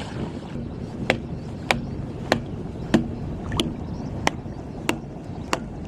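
About eight sharp hammer strikes, evenly spaced a little over half a second apart, each with a brief low ring, driving something in to fix a water-pipe trap in place. A steady rush of wind and water runs underneath.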